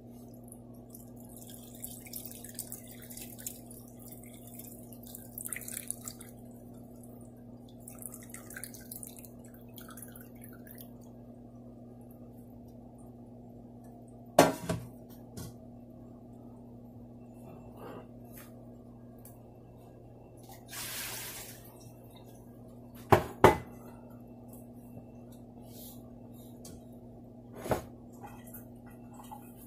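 Whey from lemon-curdled milk poured through a cloth into a jug, splashing and trickling for the first ten seconds or so, then dripping. A few sharp knocks stand out, about halfway through, twice in quick succession about three-quarters through, and once near the end, over a steady low hum.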